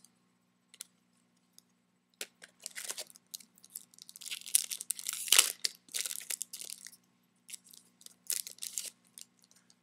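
Foil wrapper of a trading-card pack being torn open and crinkled: irregular crackling rustles, loudest in the middle, then a few short crinkles near the end.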